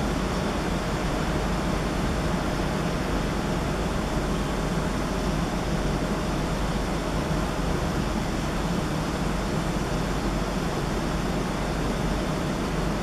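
Steady ambient rumble and hiss of an urban background, unchanging throughout, with a faint steady hum under it; no bird calls stand out.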